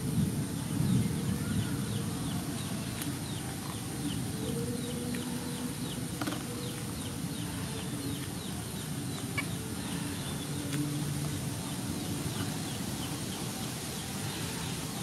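Animal calls: a long run of short, high chirps, about three a second, over a low steady rumble.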